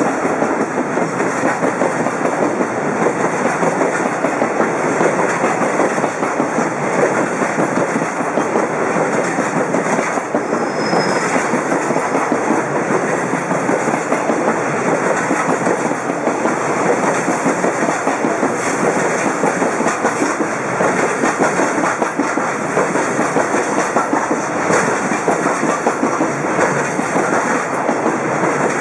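Koki 50000-series container flat wagons of a freight train, mostly empty, rolling past close by: a loud, steady wheel-on-rail noise with no break.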